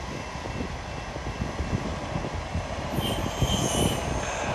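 Ford F-250 hi-rail pickup rolling along the rails, its hi-rail wheels rumbling on the track. From about three seconds in, the wheels give a thin, high squeal.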